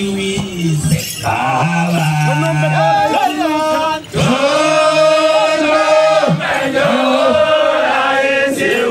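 A group of men singing a Sukuma traditional song in a chanting style, holding long notes in between shorter phrases. The singing drops off briefly about four seconds in.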